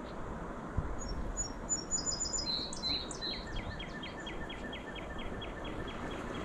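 Small songbirds singing: a high twittering phrase, then a few louder clear notes about two and a half seconds in, then a long run of short notes repeated at about four a second, over a steady background hiss.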